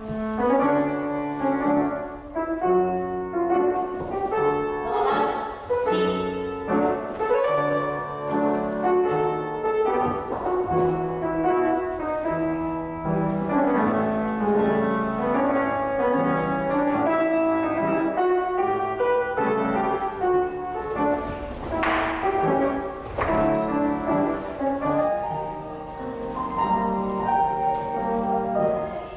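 Instrumental music with piano.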